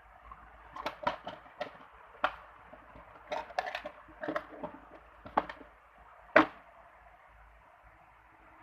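Packing being handled by hand: a string of short, sharp clicks, taps and crinkles, the loudest one about six seconds in, then a quieter lull.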